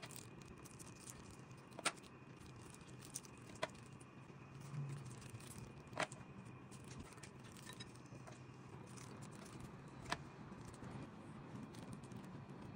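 Four short, sharp clicks a few seconds apart as milk-dipped biscuits are set down one at a time on a plastic tray, with faint handling noise between.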